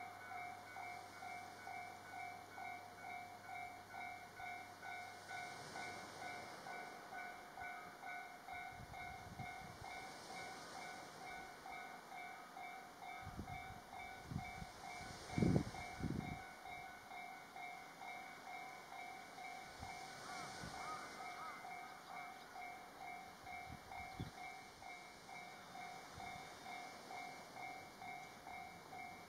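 Railroad level-crossing warning bell ringing steadily, about three strikes a second, signalling an approaching train. Low thumps and rumble come and go about a third of the way in, with the loudest thump about halfway through.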